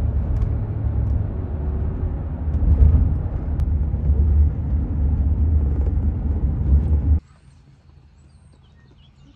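Road noise inside a moving car on a highway: a steady low rumble that cuts off abruptly about seven seconds in, leaving quiet outdoor ambience with faint bird chirps.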